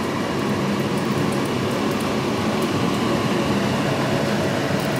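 Steady, even hiss and rush of an egg-and-mushroom omelette frying in a non-stick pan on the hob.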